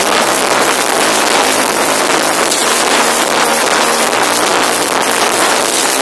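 Live rock band playing, recorded so loud that it is heavily distorted into a dense, even wash of noise with no breaks.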